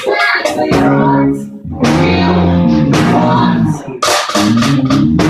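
Live full band playing a soul-pop song, with guitar, bass and drum kit, and the band stopping and coming back in together at about one and a half seconds and again near four seconds.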